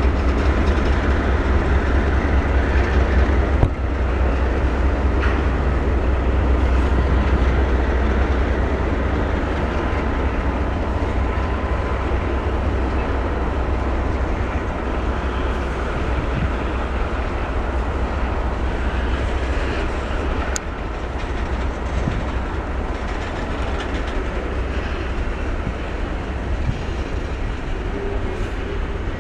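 A freight train of boxcars and containers rolling past, a steady rumble of wheels on the rails, loudest in the first few seconds.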